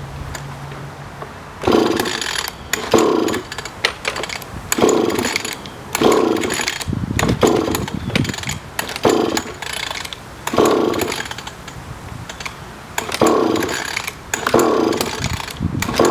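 Small 3.5 hp outboard motor being pull-started over and over, about ten rope pulls a second or two apart, each cranking the engine over briefly without it catching: the motor won't fire.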